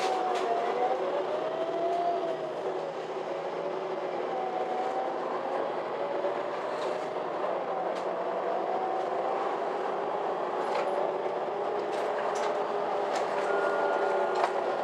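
MAN Lion's City G articulated city bus heard from inside while driving: drivetrain whine rising and falling in pitch as the bus speeds up and slows, over road noise. Scattered short rattles and clicks from the cabin.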